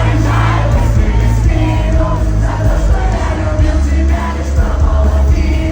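Rock band performing live and loud, with heavy bass and a singing voice over it.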